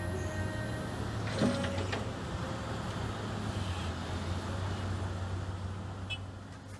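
Cat 320D excavator's diesel engine running steadily, with a brief loud clatter about a second and a half in as a bucketload of earth drops into a dump truck's steel bed. The sound fades out near the end.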